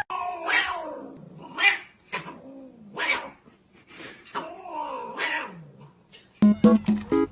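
A domestic cat yowling in a series of drawn-out calls, each falling in pitch. Music with short notes starts near the end.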